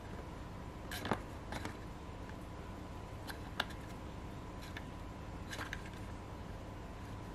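Scattered light plastic clicks as the 3D-printed number dials of a three-digit combination lock box are turned and handled, the loudest about a second in.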